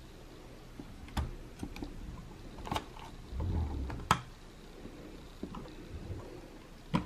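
Handling noise on hard plastic: a few scattered light clicks and knocks, the sharpest about four seconds in, with a brief low rumble just before it and two more clicks near the end.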